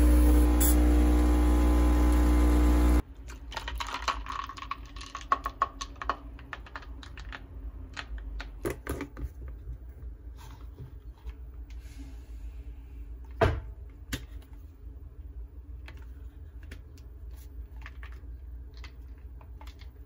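Dolce Gusto capsule coffee machine's pump buzzing loudly for about three seconds, then cutting off abruptly. After that, a run of light plastic clicks and taps as a lid is fitted onto a reusable travel cup, with one sharper knock about halfway through.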